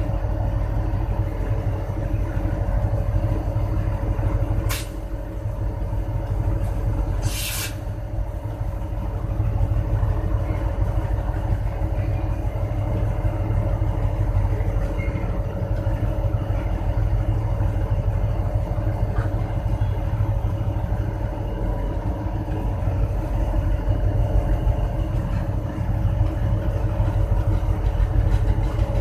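Diesel locomotive running as it moves slowly along the track: a steady low rumble with a constant hum. A sharp snap comes about five seconds in, followed by a brief high hiss a couple of seconds later.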